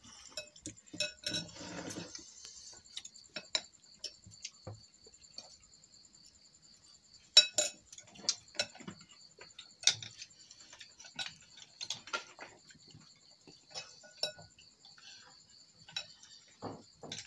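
Chopsticks and spoons clinking and scraping against porcelain bowls while eating rice porridge, in scattered taps, the sharpest about 7.5 and 10 seconds in. A steady high-pitched pulsing trill runs underneath.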